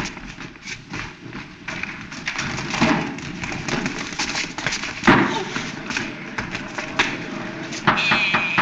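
Slapstick commotion: a run of thumps, knocks and hurried footsteps, the loudest thump about five seconds in.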